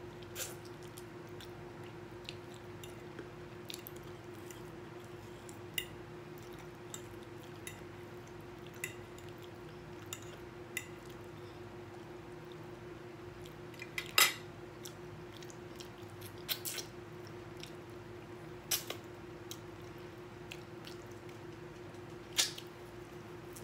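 Someone eating chicken off the bone: scattered wet mouth clicks and smacks with occasional fork-on-plate clinks, the loudest a sharp click a little past halfway. A steady background hum runs underneath.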